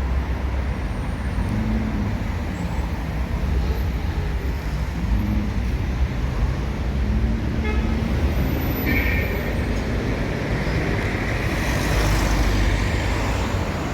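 Road traffic: vehicle engines running with a steady low rumble, with a short higher tone about nine seconds in and a rise in hiss near the end.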